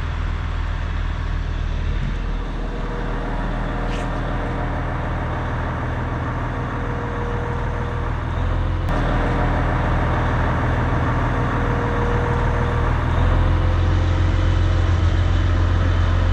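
Crane's diesel engine running steadily with a whine that comes and goes. The engine picks up and runs louder about thirteen seconds in.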